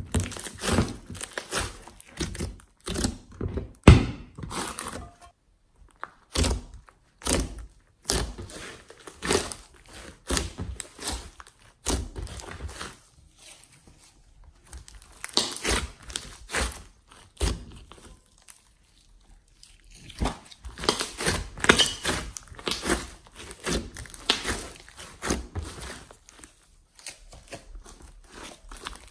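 Hands squeezing, stretching and folding a thick glossy slime mixed with clay: irregular sticky squishes, crackles and snapping pops in bursts, with a few short pauses.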